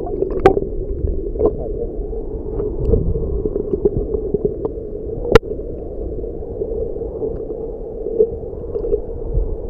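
Muffled underwater noise picked up by a submerged camera: a steady low rumble with a few sharp clicks, the loudest about five seconds in.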